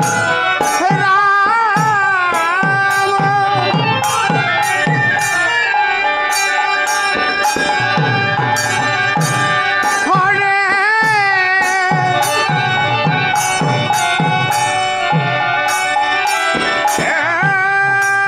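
Bengali kirtan music: khol barrel drums and kartal hand cymbals keep a steady beat, with the cymbals ringing on a regular stroke, under a sustained melody that bends and wavers in pitch.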